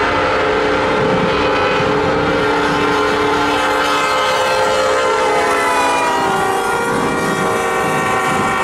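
Freight locomotive air horn blowing a sustained chord for a grade crossing, its pitch dropping as the locomotive passes about six seconds in, followed by the noise of autorack cars rolling by.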